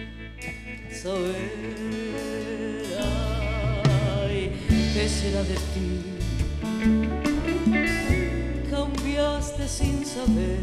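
Live band music with a woman singing a ballad into a microphone. The bass and drums come in about three seconds in, filling out the sound under her voice.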